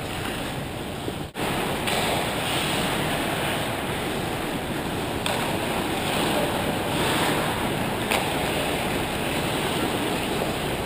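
Steady, muffled ice-rink noise of a hockey game picked up at the goal: skates scraping and gliding on the ice with the hollow hum of the arena, dropping out for an instant a little over a second in.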